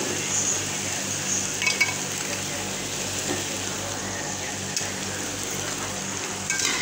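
Fish and vegetables frying in a non-stick wok with a steady sizzle, stirred with a slotted spoon that clicks against the pan a few times.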